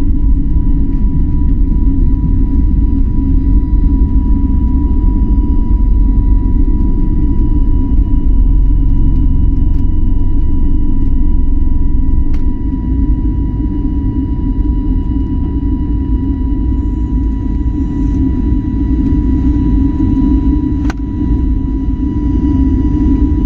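Passenger jet airliner during take-off: a loud, steady low rumble of engines and runway, with a faint steady high tone above it, easing slightly about halfway through.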